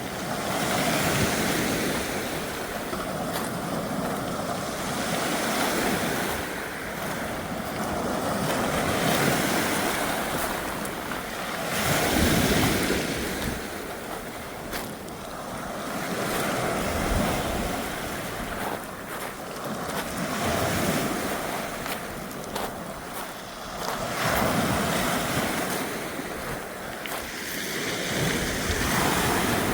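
Rough ocean surf breaking on the shore, surging and easing every few seconds, with wind buffeting the microphone.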